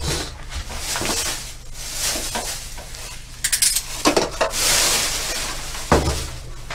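Metal handcuffs clinking and ratcheting as they are closed on a man's wrists, in several spells of rattling, the longest about four seconds in, over a steady low electrical hum.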